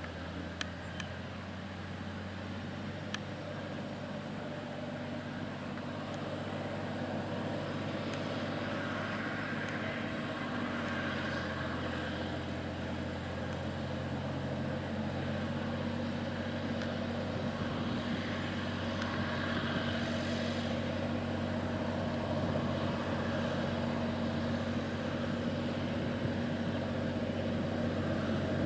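Allis-Chalmers 8550 four-wheel-drive tractor's turbocharged 731 cubic inch diesel engine running steadily under load while it pulls a disk harrow. The sound grows gradually louder as the tractor comes closer.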